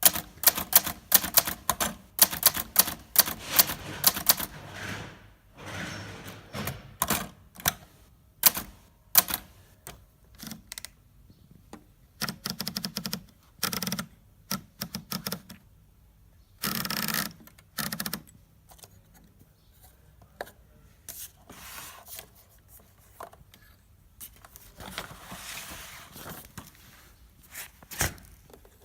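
Hermes 3000 manual portable typewriter being typed on: runs of sharp key strikes with short pauses between them, and a few longer, denser stretches about halfway through.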